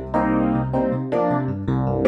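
Roland RD88 stage piano playing its 'EP Phased' electric piano sound, a phaser-swept electric piano: chords struck over held bass notes, with a new chord about a sixth of a second in and another near the end.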